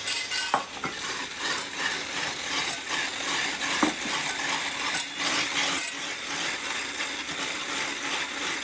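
Hand-held electric whisk running, beating egg yolks in a stainless steel saucepan, its wire whisk clattering against the pan.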